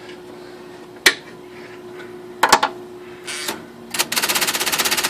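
IBM Selectric II electric typewriter with its motor humming, typing a few single strokes and then, from about four seconds in, a fast, even run of repeating strokes. The carrier is running clear and easy, no longer rubbing on the margin, now that the keyboard has been raised.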